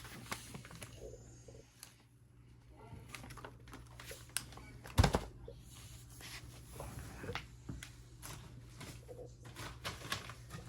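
Cardboard boxed firework cakes being handled and shifted: scattered rustles and light knocks, with one sharp thud about five seconds in, over a steady low hum.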